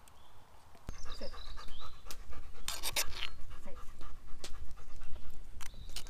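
A dog panting rapidly, starting about a second in, with a brief louder scratchy noise near the middle.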